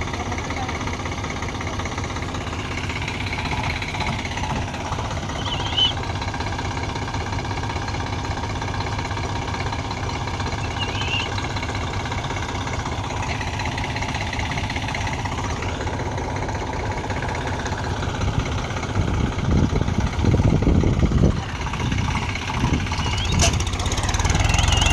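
Tractor diesel engine running steadily, then working harder in louder, heavier surges from about 18 seconds in and again near the end, as the stuck, loaded sugarcane trolley is towed out.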